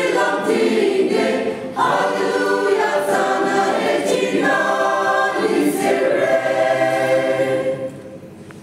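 Church choir singing in long held chords. The singing ends near the end, leaving only a fading room sound.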